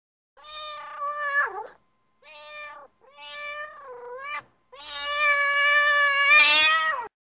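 Cat meowing four times, drawn-out calls, the last one the longest and loudest and sliding down in pitch as it ends.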